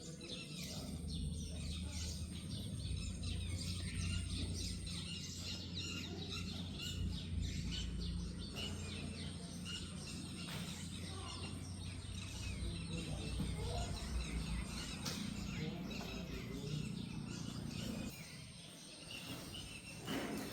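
Birds chirping over and over in many short high calls, over a steady low rumble.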